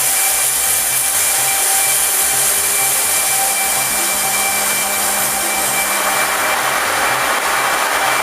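Automatic train wash plant running on test: a loud, steady hiss of water sprays, with a faint steady machine whine beneath it and the hiss growing fuller about six seconds in.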